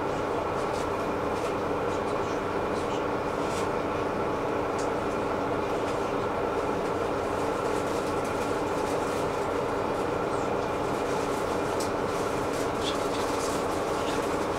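City bus interior while riding: a steady drone from the drivetrain and tyres, carrying a hum of several steady tones, with scattered light clicks and rattles from the cabin.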